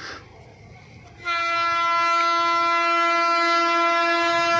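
Horn of a WAP-7 electric locomotive sounding one long, steady blast, starting about a second in.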